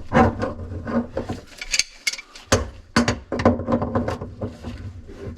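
Metal sink drain parts, a strainer and brass tailpiece, being handled and fitted: a run of sharp clicks and knocks with scraping, and a short pause about two seconds in.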